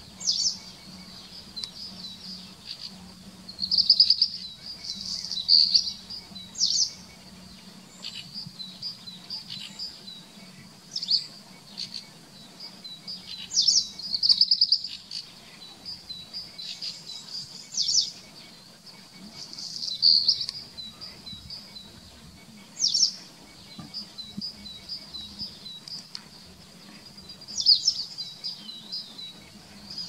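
White wagtail twittering: a steady run of short high chirps, broken by louder phrases every few seconds.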